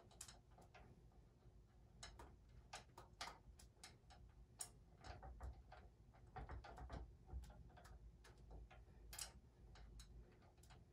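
Faint, irregular small metal clicks and taps from an Allen key and screw working against the steel crossbar and leg of a standing-desk frame, as the screw is fed toward a hole it is not yet lined up with.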